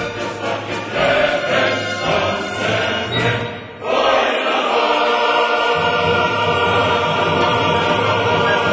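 Music: a choir singing with orchestral accompaniment, in long held notes.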